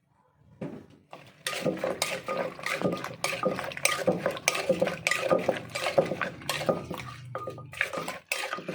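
Kitchenware clattering: many quick knocks and clinks of utensils against dishes, starting about half a second in and stopping just before the end.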